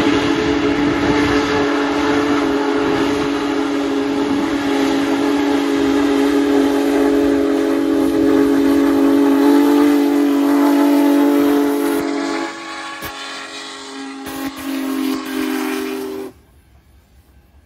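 Steam whistle of Union Pacific Big Boy No. 4014 blowing one long chord of several tones as the locomotive approaches. It drops in level about twelve seconds in and cuts off suddenly near the end.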